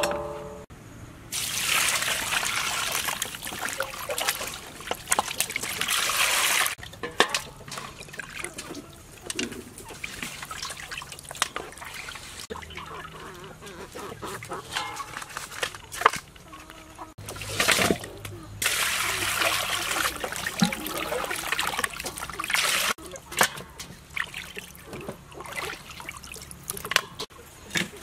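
Water poured into a metal bowl of pork pieces and chicken feet as they are washed by hand: two long pours of several seconds each, with splashing, sloshing and the clink of meat and metal bowls in between.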